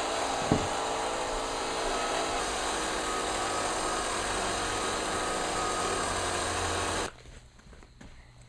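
1973 Mattel Vertibird toy helicopter's battery-powered motor whirring steadily as it spins the rotor, then stopping suddenly about seven seconds in.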